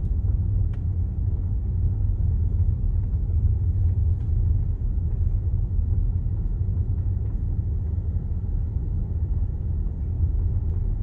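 Steady low road rumble and tyre noise heard inside a moving car's cabin.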